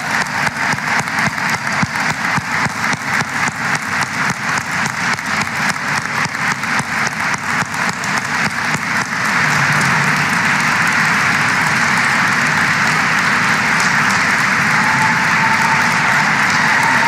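Audience applauding. For the first half a steady beat of claps, about four a second, stands out. About nine seconds in the applause swells into denser, louder, even clapping.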